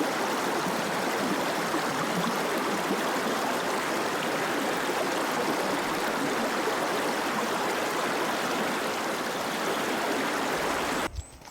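Stream rushing: a steady, even rush of flowing water that cuts off suddenly near the end.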